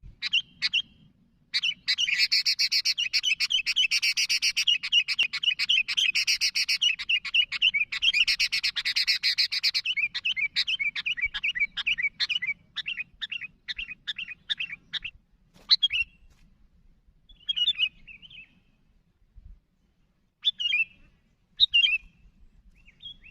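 Sooty-headed bulbuls calling in a loud, rapid, excited chatter that thins after about ten seconds into separate notes a few per second, then only occasional single calls near the end.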